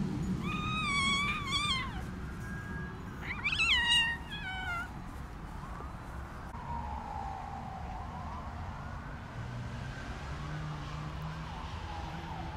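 A kitten meowing twice: two long, high, wavering meows a second or so apart in the first five seconds, the second ending on a falling pitch. Fainter sliding tones follow in the background.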